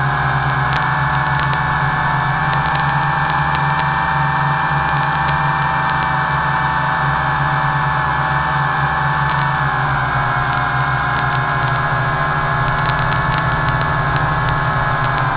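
WLToys V666 quadcopter's motors and propellers whining steadily in flight, picked up by its onboard camera's microphone, with a low drone underneath. The pitch dips slightly about ten seconds in.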